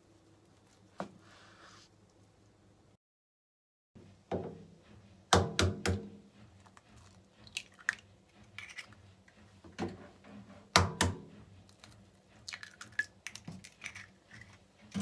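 A knife slicing through a rolled omelet on a cutting board, with one light knock about a second in. After a short gap, two eggs are each cracked with a sharp knock against the rim of a stainless steel bowl, followed by the crackle of shell as each is pulled open over the bowl.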